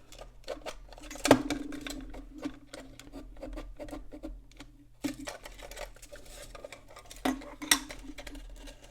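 Irregular clicks and knocks of a thin plastic flip clock housing being handled and pried apart, with two sharp snaps, one about a second in and one near the end, over a steady low hum.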